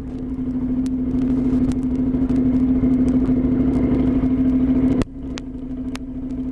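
Motorcycle engine running under way at a steady pitch. It grows louder over the first few seconds, then drops sharply about five seconds in as the throttle eases, with scattered clicks.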